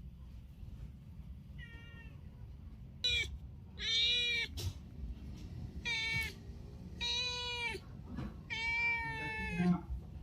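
A domestic cat meowing repeatedly, calling out: about six meows, the first faint, the last one drawn out the longest.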